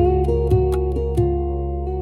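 Slow ambient instrumental music in a raga style: a few plucked melodic notes that ring and fade over a steady low drone.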